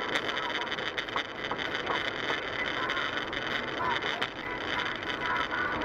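Steady road and engine noise inside a moving car, picked up by a dashcam microphone, with a few faint clicks.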